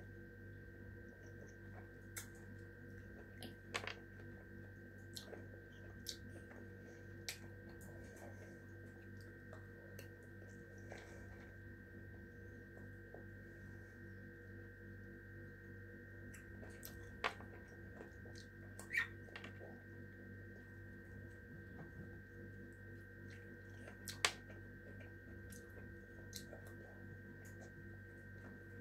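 Quiet eating of sweet cherries: scattered short wet clicks and smacks of chewing and picking cherries, a few sharper ones in the second half, over a steady hum.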